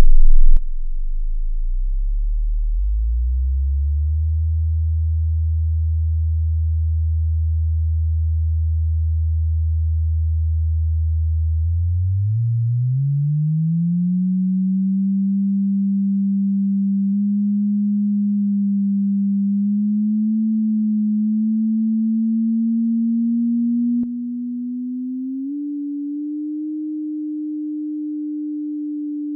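Pure sine-wave hum from a Max synthesizer's oscillator, the same signal that draws a circle on the oscilloscope. It starts as a very low hum, steps up in pitch about 3 s in, glides up smoothly about 12 s in to a higher steady hum that creeps slowly upward with a slight wavering, then drops in loudness with a tiny click near 24 s and steps up in pitch once more shortly after.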